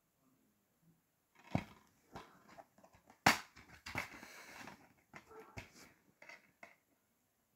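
Plastic DVD case being handled and opened: a string of clicks and knocks, the loudest a sharp snap a little over three seconds in as the case comes open, followed by a short stretch of rustling as it is moved about.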